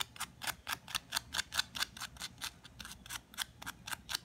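Fine sandpaper rubbed rapidly back and forth over a small brass electrical terminal, about six strokes a second. The terminal is being cleaned because burnt contacts in the Kärcher K2 trigger switch no longer make full contact, which leaves the pressure washer cutting out or failing to start.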